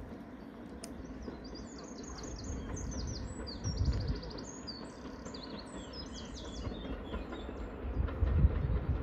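Songbirds singing a quick run of chirps and trills over a steady low background, with a low rumble swelling twice, about four seconds in and again near the end.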